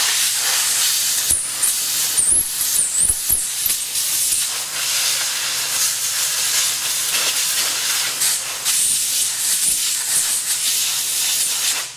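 Compressed air hissing steadily from an air gun on a shop air hose, blowing dirt and oil off a skid loader's lift cylinder. The hiss starts abruptly, wavers into a brief whistle a couple of seconds in, and cuts off just before the end.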